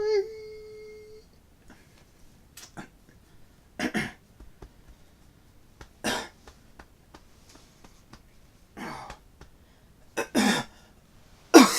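A person coughing and clearing their throat: about six short, separate coughs a second or two apart, the last ones the loudest.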